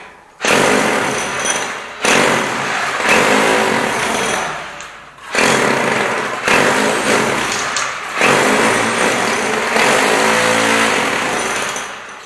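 Electric hammer drill chipping into a masonry wall for new electrical wiring, running in several long bursts with short breaks between.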